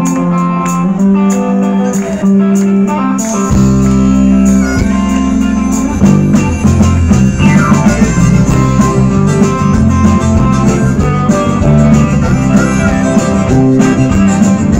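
Live rock-and-roll band with a harmonica played through a vocal microphone over electric guitars. The bass end fills in about three and a half seconds in, and the full band gets louder about six seconds in.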